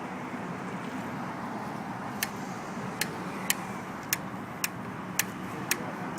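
Steady downtown street traffic noise, with a run of sharp, evenly spaced clicks about two a second starting about two seconds in.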